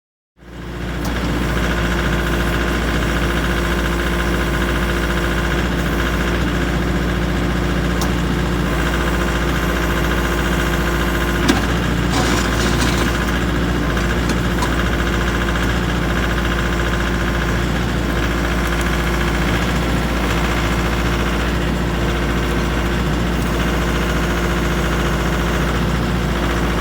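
Mahindra 2538 tractor's diesel engine running at a steady idle, fading in at the start, with one short click a little before halfway.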